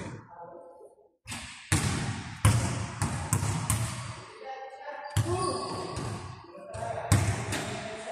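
Basketball bouncing on a gym floor: about nine sharp, echoing bounces at an uneven pace, with voices in the hall between them.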